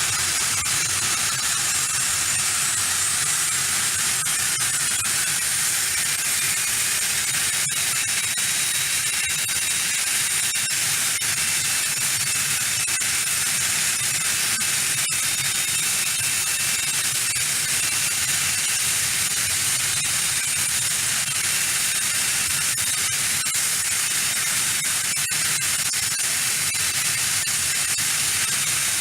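Aircraft engines running steadily at a distance: an even hiss with a faint high whine, not rising or falling.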